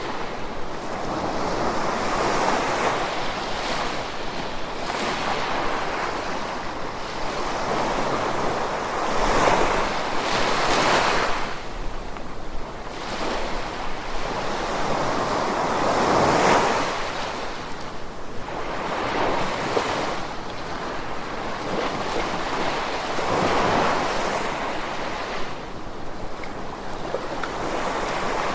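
Gentle ocean waves washing in, each surge swelling and falling back every six to seven seconds over a steady hiss of water.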